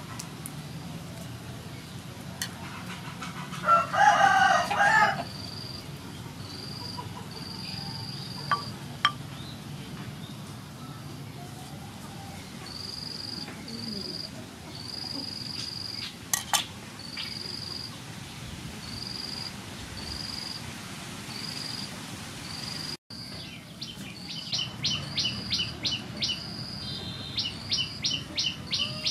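A rooster crows once, loud, about four seconds in. Through the rest a short high note repeats about once a second, with a few sharp clicks. After a cut near the end, fast high-pitched bird chirping.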